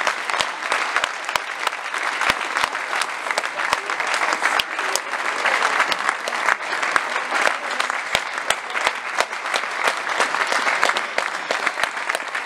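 A small group of people applauding, a steady patter of hand claps.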